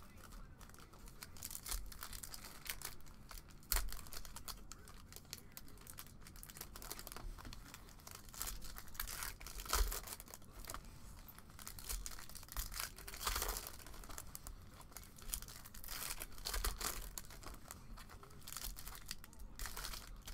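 Foil trading-card pack wrappers being torn open and crinkled by hand, in irregular bursts of rustling, with a few louder tears.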